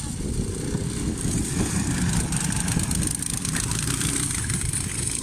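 Two cyclekarts' small engines running as the karts drive past on a grass track, the sound steady throughout.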